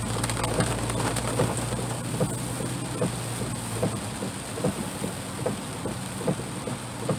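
Heavy rain pattering on a truck's roof and windshield, heard from inside the cab as a steady hiss full of small drop impacts, over a steady low hum from the idling engine.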